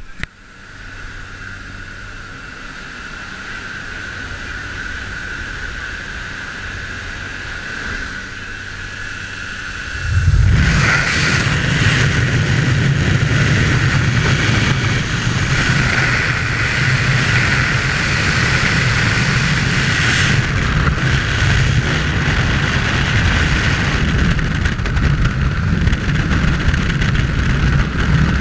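Steady drone of a jump plane's engine and propeller heard through the open door. About ten seconds in it gives way suddenly to the loud, steady rush of freefall wind over the helmet camera's microphone as the skydivers exit.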